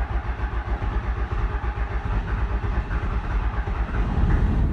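12-valve Cummins 5.9 L inline-six diesel turned over by its starter, a fast, even chugging of compression strokes that grows a little louder near the end without the engine catching. It is cranking on a fuel system just primed by hand, with air not yet worked out of it.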